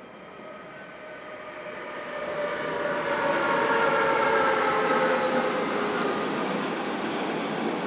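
A train approaching and passing, growing louder over the first three seconds and then staying loud. Several whining tones sound over the running noise and fall slightly in pitch as it goes by.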